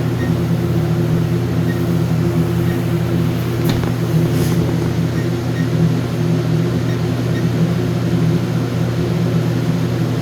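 Steady low mechanical hum, with one sharp click a little under four seconds in.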